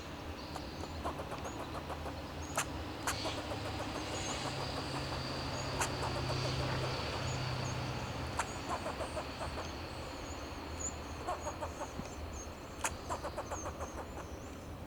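Fox squirrel alarm calls: bouts of rapid, clucking chucks and single sharp barks, thickest in the last few seconds. A vehicle's engine hum passes underneath, loudest around the middle.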